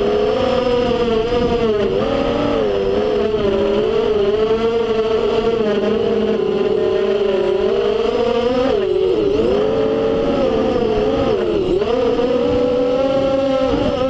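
FPV racing quadcopter's brushless motors and propellers whining, heard from the drone's onboard camera, the pitch wavering up and down with the throttle. The whine drops sharply and climbs back twice, about nine and eleven and a half seconds in.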